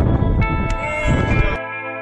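Background music with long held notes, over a rushing wind noise that cuts off suddenly about one and a half seconds in, leaving the music alone.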